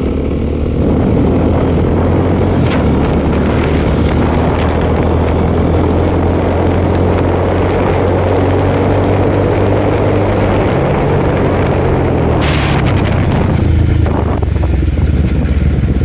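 Motorcycle engines running steadily at cruising speed, heard from a bike riding close behind. Near the end a short rush of hiss is followed by a rising engine note as a motorcycle rides toward the microphone.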